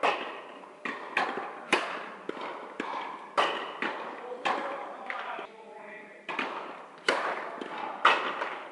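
Tennis rally: a ball struck by rackets and bouncing on the court, a sharp pop every half second to second, each with a long echo in a large indoor tennis hall.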